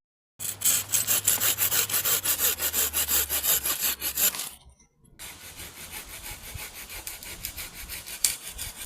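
Hand saw cutting through a hazel branch with quick back-and-forth strokes. The sawing is loud for about four seconds, breaks off suddenly, then carries on more quietly.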